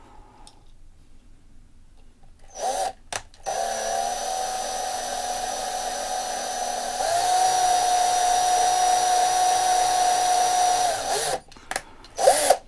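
Small electric drill running, drilling out the rivet head on the metal base of a 1/64 diecast car. A short spin-up, then a steady whine for about eight seconds that grows louder with a clear tone about halfway through, and another short burst near the end.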